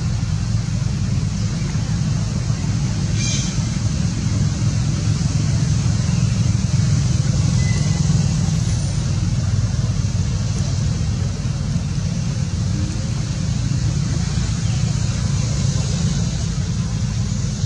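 Steady low outdoor rumble with no distinct event, and a faint single click about three seconds in.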